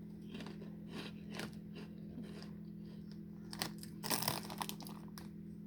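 A person biting into and chewing a crunchy packaged snack close to the microphone, the crunching coming as scattered crackles and thickest about four seconds in. A steady low hum runs underneath.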